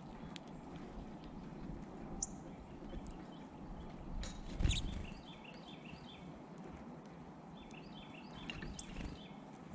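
Small songbirds calling at a backyard seed feeder: a few short high chirps, then two runs of quick warbled notes, over a steady outdoor background hum. There is one soft knock about halfway through.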